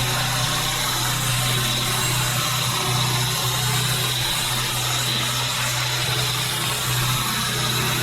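Pressure washer running steadily: a constant engine or pump hum under the continuous hiss of the high-pressure water jet spraying.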